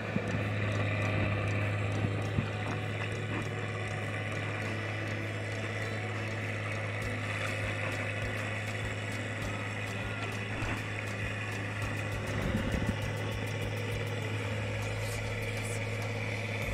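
Tractor engine running at a steady speed, a constant low hum with no change in pitch.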